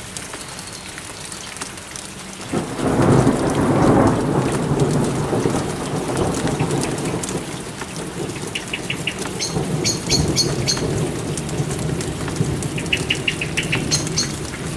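Steady rain of a light summer thunderstorm, with a roll of thunder that swells about two and a half seconds in, is loudest for a second or two, then rumbles away slowly. Small birds chirp in short quick series around the middle and again near the end.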